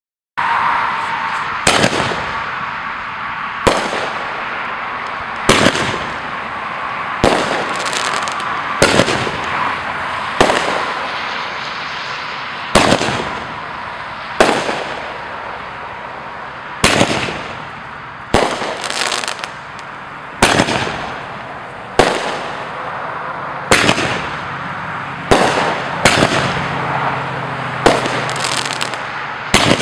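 The 'Earthquake' consumer firework going off: a string of sharp bangs about every one and a half to two seconds, some in quick doubles, over a steady hiss and crackle.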